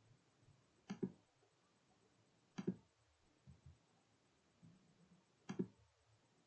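Computer mouse button clicks: three quick pairs of sharp clicks a couple of seconds apart, over faint room tone.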